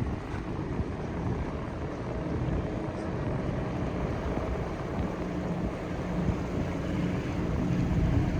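Low rumble of a large car carrier's engines as it passes through the canal, mixed with wind on the microphone. A steady low hum comes up in the second half.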